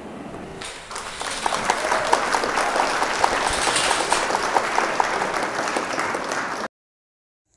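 Applause from a crowd, starting about a second in and cut off abruptly near the end.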